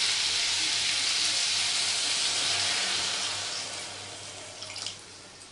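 Hot kadai of spiced potato and broccoli curry sizzling with a steady hiss as about half a glass of water is poured in; the hiss dies away over the last second or two as the water cools the pan.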